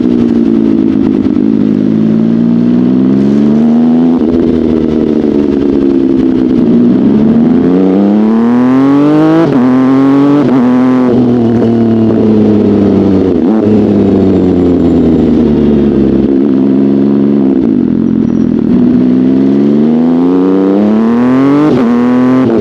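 Sport motorcycle engine under way, revs climbing and then dropping sharply at each upshift, with quick shifts around the middle and another near the end. Between the pulls the revs wind down slowly.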